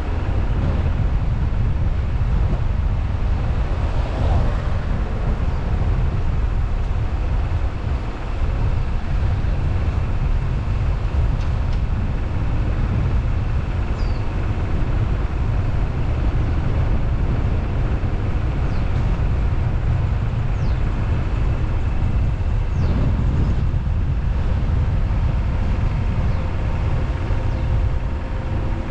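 A car driving along a road, heard through a car-mounted action camera: a steady low rumble of engine and tyres that holds at an even level throughout.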